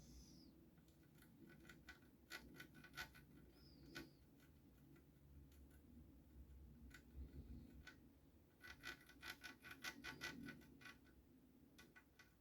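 Near silence: room tone with a low hum and scattered faint small clicks and ticks, most of them bunched together about nine to ten seconds in.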